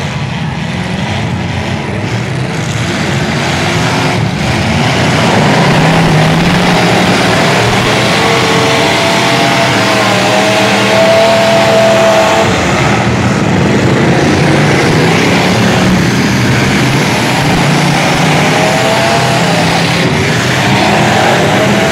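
Several demolition-derby pickup truck engines revving hard together. The noise is loud and continuous, grows louder about four to five seconds in, and carries whines that rise and fall in pitch as the trucks accelerate.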